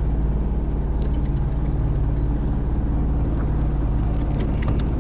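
Boat engine idling steadily with a low hum, with a few light clicks near the end.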